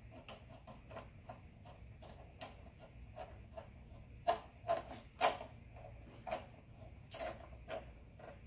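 A run of small clicks and taps from hands handling and fitting a heavy cable inside a metal electrical enclosure, with a few louder knocks about halfway through.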